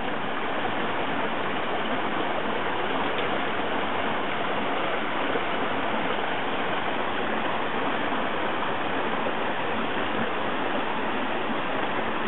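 Small waterfall pouring into a rock pool on a mountain stream: steady rushing water.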